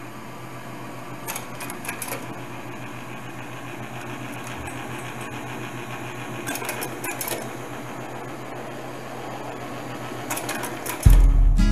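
A steady, fast mechanical clatter with a few short clusters of clicks; acoustic guitar music starts near the end.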